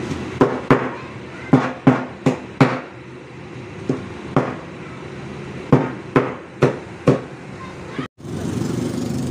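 Meat cleaver chopping a roast chicken on a cutting board: about a dozen sharp knocks in quick groups of two or three, over a steady background hum.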